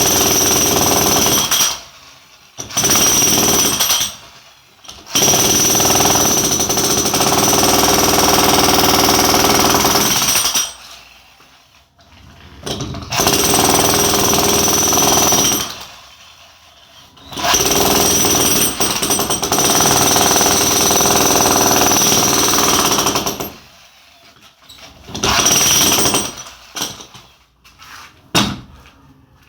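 Jackhammer chipping into a solid concrete wall to cut a channel for an electrical circuit line. It runs in repeated bursts of about two to six seconds, with short pauses between them and a last brief burst near the end.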